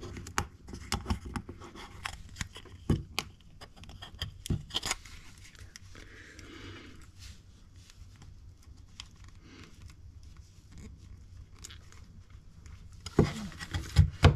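Small laser-cut wooden parts and a clear plastic disc handled and fitted together on a table: scattered light clicks and taps, a short rubbing scrape about halfway, and louder knocks near the end as the disc is set down.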